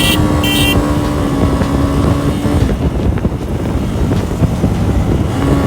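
Motorcycle engine running at a steady speed on the move, with wind rushing over the microphone; the engine's drone fades about two and a half seconds in and comes back near the end.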